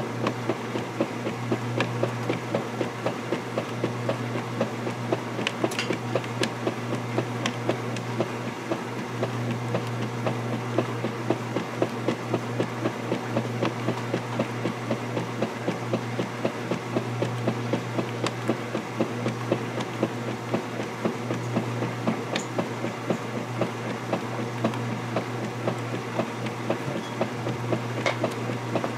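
KitchenAid direct-drive top-load washer agitating a load: a steady motor hum under a regular churning beat of the finned agitator, about three strokes a second, with water sloshing.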